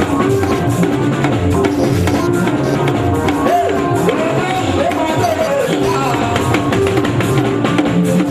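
Music with a drum beat and a voice singing over it.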